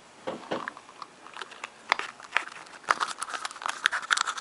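Clear plastic iPod Shuffle packaging being handled and opened: a run of crinkles and sharp clicks that gets busier over the last second or so.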